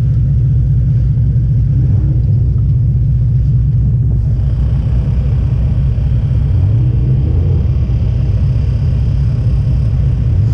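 Demolition derby car's engine running with a heavy low rumble, heard from inside the car; from about six seconds in its pitch rises and falls as it is revved.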